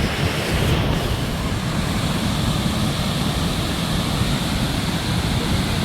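Steady rushing roar of Victoria Falls' falling water, with wind buffeting the microphone.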